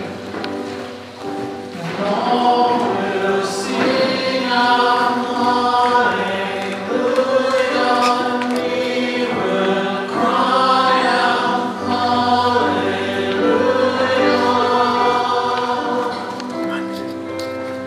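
A congregation of mixed voices singing a hymn together.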